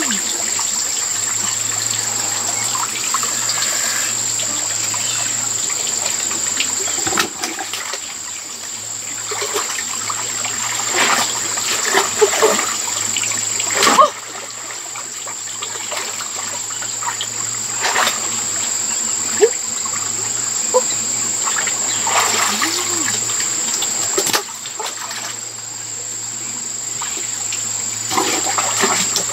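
Water splashing and trickling as hands grope through a shallow, muddy stream pool for fish, with a few sharper splashes or knocks and a steady high-pitched tone above the water noise.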